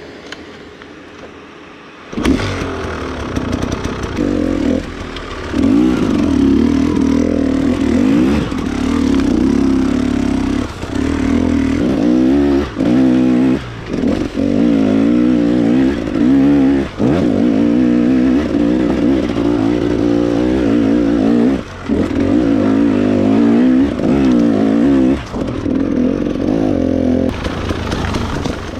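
Dirt bike engine under hard riding. It comes in loud about two seconds in, its pitch rising and falling with the throttle, and drops briefly several times where the throttle is shut off.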